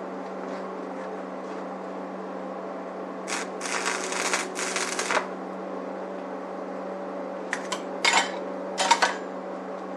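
Lincoln AC225 stick welder humming steadily, with its arc crackling in three short bursts about three seconds in as a weld is tacked, then a few brief sharp crackles or scrapes near the end.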